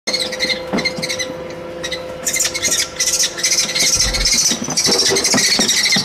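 Nestling birds calling with shrill, repeated screeches, which grow busier from about two seconds in, over scattered knocks and a thump from handling.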